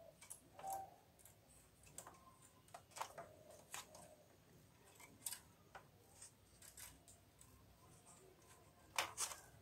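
Faint, scattered clicks and light knocks from hands handling the plastic and metal parts of an opened Epson L361 inkjet printer's carriage mechanism, the loudest two close together near the end.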